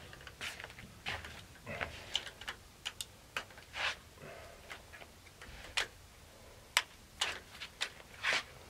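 Faint, irregular small clicks and knocks, a dozen or so: a 12-gauge shotgun fitted with a weapon light being handled and readied.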